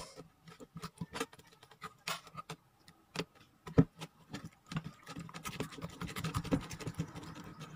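Metal spoon stirring freshly activated glue slime in a bowl: irregular clicks and scrapes against the bowl, coming thicker and closer together over the last few seconds.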